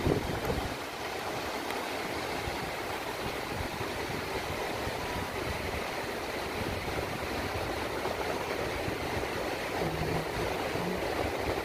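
Surf breaking on a sandy beach: a steady wash of waves. Wind buffets the microphone briefly at the start.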